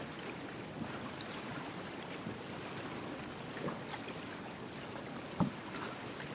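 Fast river current rushing around a kayak as it is paddled, with the paddle strokes dipping and splashing. One sharp knock about five seconds in.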